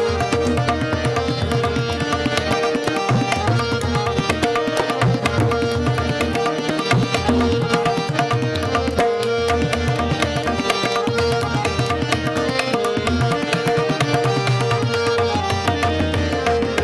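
Hindustani classical vocal performance in raga Rageshree: a woman singing, with tabla strokes keeping a steady rhythm, harmonium following the melody, and a tanpura drone held underneath.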